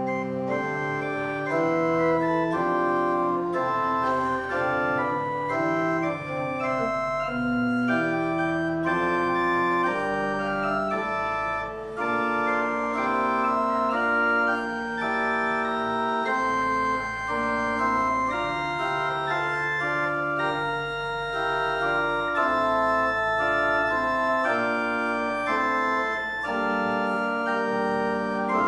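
Organ playing a slow piece in full held chords over sustained low bass notes.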